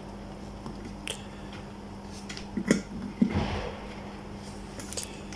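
A few light clicks and taps of multimeter test probes and small kettle parts being handled, over a faint steady low hum.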